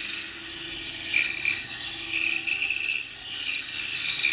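Pegas scroll saw cutting a curved key into a wooden block: a steady rasping cut as the blade works through the wood, with the saw's motor humming underneath.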